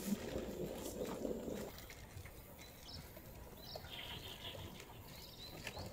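Footsteps swishing and crunching through grass for about the first second and a half, then stopping. After that it is quieter, with scattered faint high chirps.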